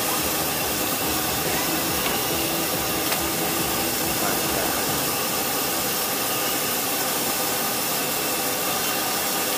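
Egg noodles deep-frying in a wok of hot oil: a steady sizzling hiss as the noodles are fried until crisp, with one light click about three seconds in.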